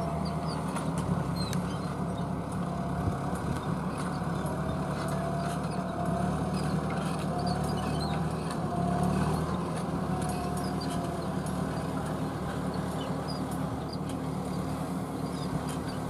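Fendt 415 Vario tractor's diesel engine running steadily under load while pulling a Kverneland ED85 four-furrow mounted plough through the soil, with a whine that wavers slightly in pitch above the low engine note.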